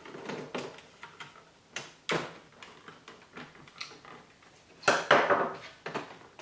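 A Torx screwdriver being worked on the screw that holds an all-in-one PC's rear hinge mechanism: scattered clicks and knocks of the metal bit and hard plastic, with a louder brief clattering scrape about five seconds in.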